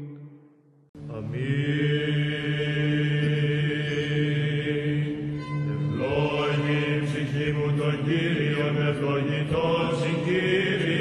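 Greek Orthodox hymn chanted without words: long held, melismatic notes over a steady low drone, coming in about a second in after a brief pause.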